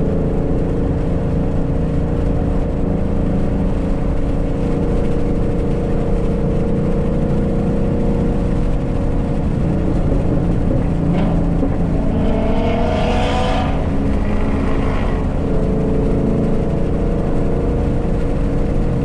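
Ford Mustang's engine and exhaust running at a steady cruise, heard from inside the moving car. A brief louder rush of noise swells and fades about two-thirds of the way through.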